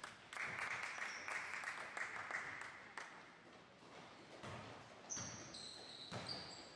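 Basketball game on a hardwood gym court: ball bounces and footfalls, with short high sneaker squeaks on the floor from about five seconds in.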